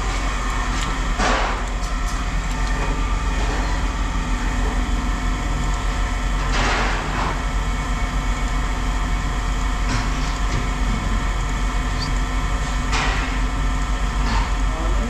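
A large engine or machine running steadily with a constant low hum, broken three times by short bursts of hiss.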